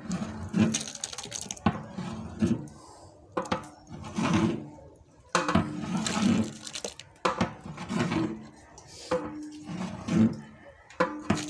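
A metal ladle scraping and knocking against a large aluminium cooking pot while stirring and lifting runny khichuri, with the thick mixture sloshing. The strokes repeat about once a second, each with a short metallic ring.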